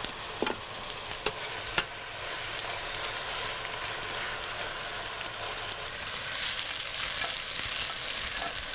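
Steady sizzling of diced fennel, shallots and garlic sautéing in a hot frying pan alongside fish bones reducing in a saucepan, with a few light clicks in the first two seconds. The sizzle swells near the end as the frying pan is tossed.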